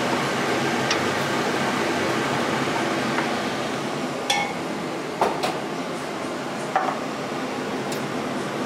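Wooden spoon knocking several times against a stainless-steel pot, short clinks with a brief metallic ring, over a steady background hiss.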